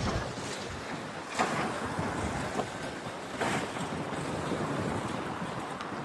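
Rubble of a collapsing concrete building pouring down in a steady rushing noise, with sharp cracks of breaking debris about a second and a half and three and a half seconds in.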